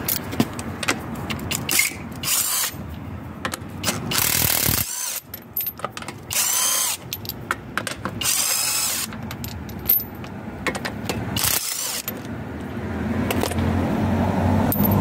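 Ratchet clicking on a car's wheel bolts, then a cordless driver whirring in five short runs as it spins the loosened wheel bolts out.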